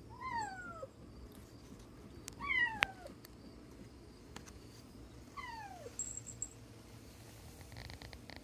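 Bengal cat crying three times, each cry a short call that falls in pitch: the fearful cry of a very scared cat. A sharp click sounds about three seconds in.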